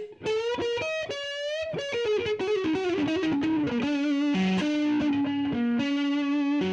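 Electric guitar with P90 pickups, in the middle pickup position, played through a solid-state amp's overdrive channel: a single-note lead phrase with bends and slides, a quick descending run in the middle, and held notes near the end.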